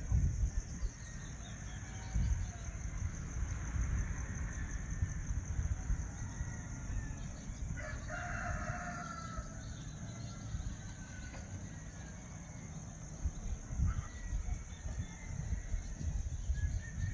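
A rooster crows once, about eight seconds in. Under it is a steady high chirring of crickets and a low, uneven rumble.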